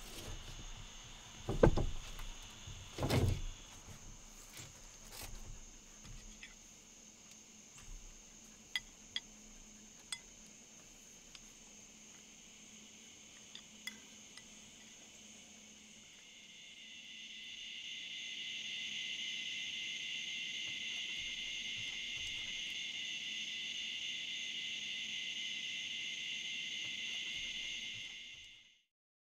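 Evening chorus of insects, a steady high-pitched trilling that swells up about halfway through and stops just before the end. Earlier, two heavy thumps in the first few seconds, then scattered light clinks of spoons on ceramic bowls.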